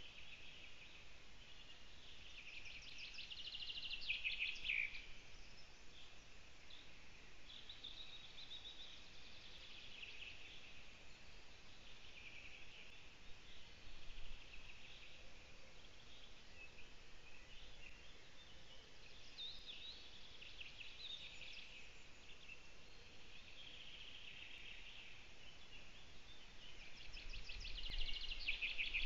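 Small songbirds singing: a short trilling song phrase, ending in a falling flourish, comes back every several seconds over a faint steady hiss.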